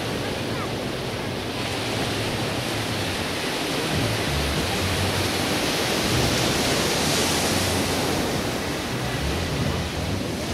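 Ocean surf washing onto a sandy beach: a steady rush of breaking waves that swells in the middle, with wind buffeting the microphone.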